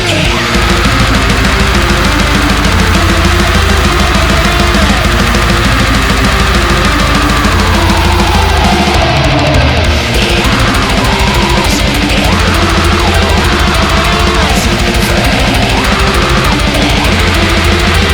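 Loud heavy metal music playing throughout, with drums and guitar.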